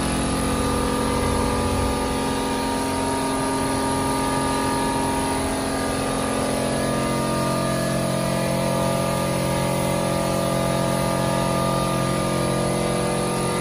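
A 3 HP air compressor running steadily, with the hiss of a gravity-feed spray gun spraying paint.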